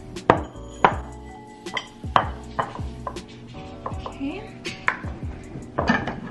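Several sharp knocks of a plastic measuring cup against a ceramic bowl as dry steel-cut oats are scooped and tipped in, over background music.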